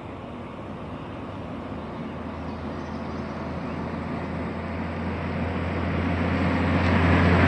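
A vehicle approaching: a steady engine and road rumble with a strong low drone, growing louder throughout.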